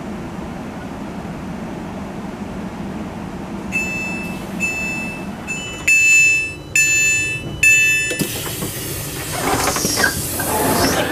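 Interior running noise of a Class 350 Siemens Desiro electric multiple unit with a steady low hum, then the door-release alert: a run of electronic beeps about once a second, the last three louder, signalling that the passenger doors are released. From about eight seconds in, a rising rush of noise as the sliding door opens.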